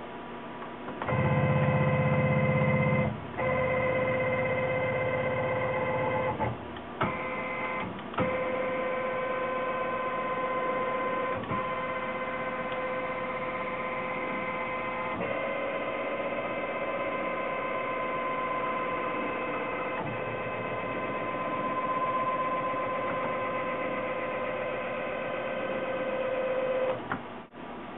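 TAIG CNC milling machine running a program, its axis drive motors whining with several steady tones that shift as the moves change, with a few short clicks. It is louder for about the first six seconds, with a strong low hum, then steadier and quieter.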